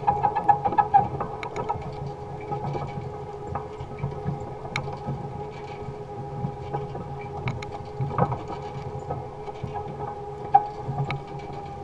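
Electric motor of a converted Allis-Chalmers Model G tractor running with a steady whine and low hum. Scattered clicks and rattles come from the ground-driven wire baskets of the basket weeder rolling through the soil.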